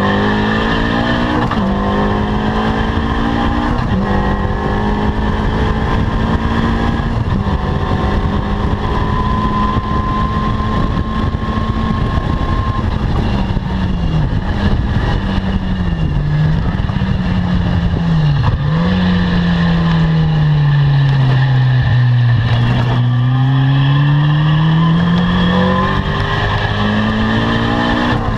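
Caterham Seven R300's four-cylinder engine driven hard on track: it revs up with a quick upshift about a second in and holds steady high revs for about ten seconds. Then the revs dip and recover several times, fall to a low point, climb slowly back up, and step through two more quick upshifts near the end.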